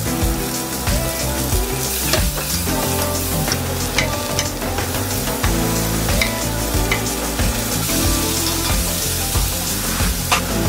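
Chopped leek and bok choy sizzling as they hit hot coconut oil in a cast-iron pot. A wooden spoon scrapes them off a wooden board and stirs them, with a few sharp knocks along the way.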